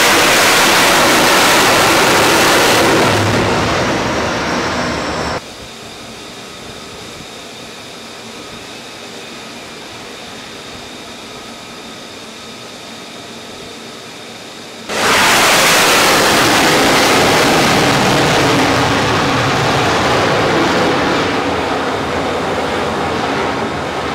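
F-35C jet engine, loud at close range as the fighter lands on the carrier deck and is caught by the arresting wire. About five seconds in it cuts off sharply to a quieter, steady distant jet sound with a faint whine. Then loud jet noise returns suddenly about fifteen seconds in and eases slightly near the end.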